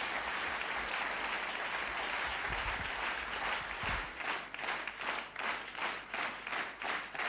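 Concert audience applauding. About four seconds in, the applause turns into rhythmic clapping in unison, about three claps a second, a call for an encore.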